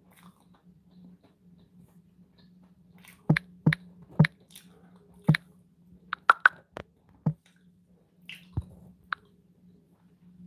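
Person eating close to the microphone: a dozen or so short, sharp clicks and wet smacks of chewing, scattered over several seconds from about a third of the way in, over a faint steady low hum.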